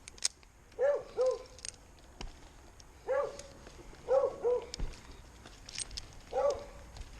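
A dog barking, mostly double barks about every two seconds.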